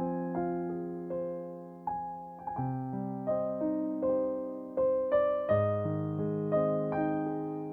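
Background piano music: a slow melody of single struck notes, each dying away, over low sustained chords.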